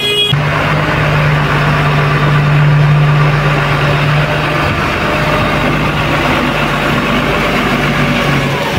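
Diesel engine of a loaded Tata goods truck running at low revs as the truck creeps forward, a steady low hum throughout.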